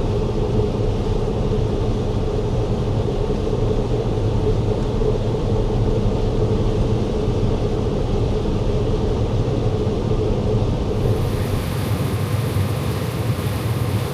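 Combine harvester running steadily while harvesting corn, heard from inside the cab as a steady low drone. About eleven seconds in, a brighter hiss joins it.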